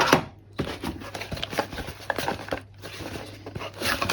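Packaging rustling and crinkling with many small irregular clicks as boxed battery parts are handled and unwrapped, opening with a sharp knock.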